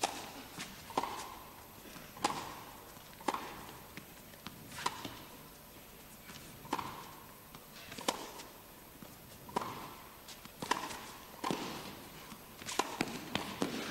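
Tennis rally in an indoor arena: a serve struck at the start, then racket strings hitting the ball and the ball bouncing on the court, roughly one sharp knock a second, each ringing briefly in the hall's echo. A quicker run of hits near the end as a player volleys at the net.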